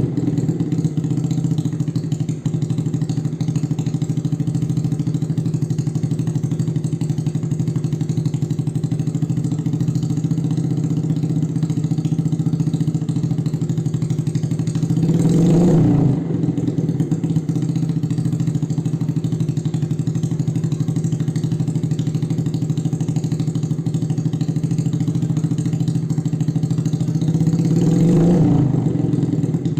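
Suzuki Shogun Axelo R's single-cylinder four-stroke engine idling through an aftermarket X1 Speed Racing silencer, blipped twice with a short rev that rises and falls back to idle, about halfway and near the end.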